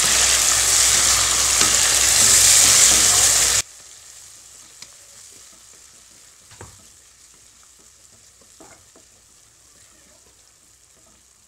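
Sliced onions and tomato pieces sizzling in hot oil in a nonstick kadai, stirred with a wooden spatula. About three and a half seconds in, the sizzle drops suddenly to a faint hiss with a few soft scrapes of the spatula.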